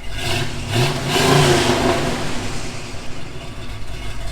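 Buick Riviera's big-block V8 running through its newly installed custom exhaust with the resonators kept, blipped up in about three quick revs in the first second and a half, then settling to a steady idle.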